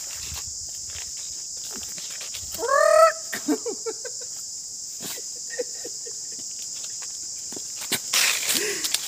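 Insects shrilling steadily in the trees, stopping shortly before the end. About three seconds in comes a brief rising vocal cry, followed by a few faint short sounds.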